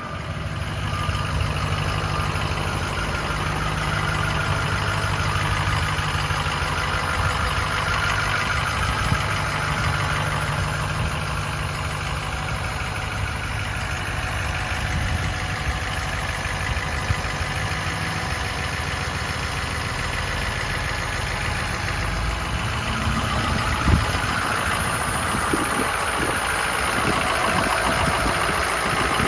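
Ford F-350 Super Duty dump truck's engine idling steadily, with one brief knock late on.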